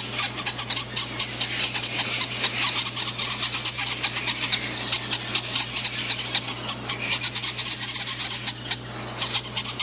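Newly hatched Quaker parakeet chicks begging during syringe feeding: a fast, raspy chatter of tiny clicks with a few short high peeps.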